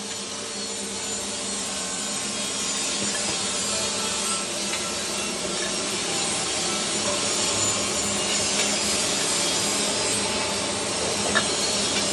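Steady machine-shop noise: a rasping hiss over a faint low hum, growing gradually louder, with one sharp metallic knock near the end.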